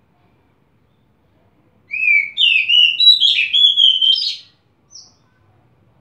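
Oriental magpie-robin singing: a varied phrase of clear, quick whistled notes starting about two seconds in and lasting about two and a half seconds, followed by one short high note.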